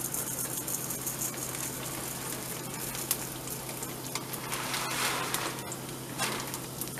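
Long-grain rice sizzling steadily in hot lard in a saute pan as it begins to toast.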